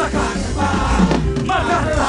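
Live gospel praise-and-worship music: a church band with a steady bass and voices singing.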